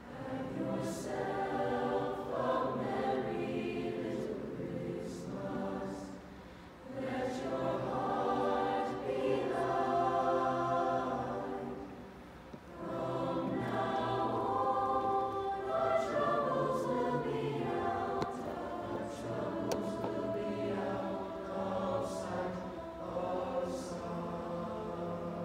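Mixed-voice school choir singing in harmony through face masks, with short breaks between phrases about six and twelve seconds in and long held notes near the end.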